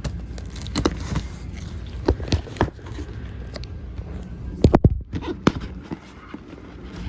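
Cardboard box and packing being handled as a ceiling fan is unpacked: irregular knocks, taps and light rustling, with the loudest cluster of knocks just before the five-second mark.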